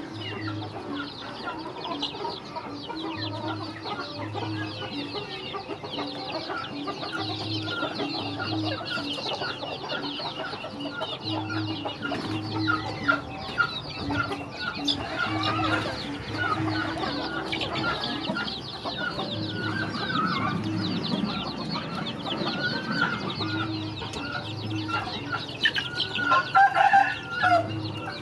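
Young chickens clucking and peeping as they feed together, with a louder call about a second before the end. Under them runs background music with a regular low pulse.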